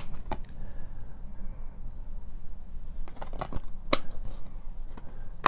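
Sharp plastic clicks from a Blu-ray disc being handled on the centre hub of its plastic case: a few single clicks, a quick cluster about three seconds in, and the sharpest click near the end.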